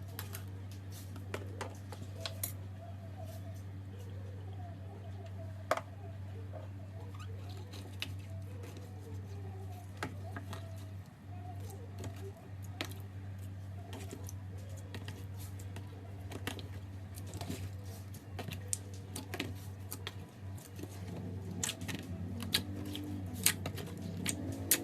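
Slime being pressed and kneaded by hand: a run of sharp, sticky clicks and small air-bubble pops, scattered irregularly, over a steady low hum.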